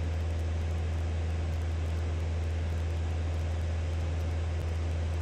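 Light single-engine propeller aircraft's engine and propeller heard from inside the cabin in flight: a loud, steady, low drone with no change in pitch.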